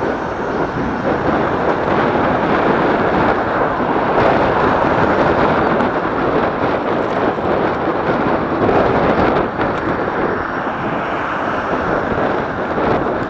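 Wind rushing over the microphone of a camera on a moving bicycle: a steady, loud rumble of noise.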